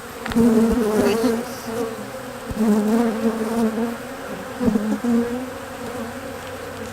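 Honey bees buzzing close around an opened hive, several at once, the pitch wavering and swelling as individual bees fly past; the colony is stirred up with its lid off. A few light knocks sound among the buzzing.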